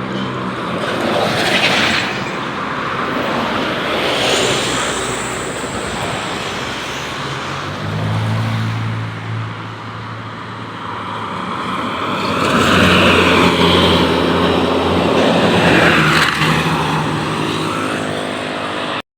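Large tour bus engine running as buses drive past, with road and traffic noise; the engine grows louder from about twelve seconds in, then eases near the end.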